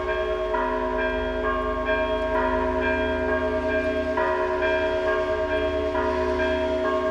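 Orthodox church bells ringing for a feast day: several bells of different pitches struck in a repeating pattern, their tones overlapping and ringing on without a break.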